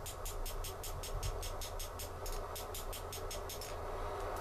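Fast, even series of light hammer strikes on hot steel on an anvil, about seven a second, with a brief pause near the end, over a steady hiss and low hum.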